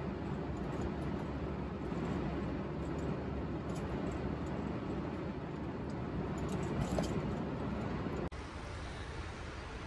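Steady road and engine noise from inside the cab of a diesel motorhome cruising on a motorway. It cuts off abruptly a little past eight seconds to a quieter background.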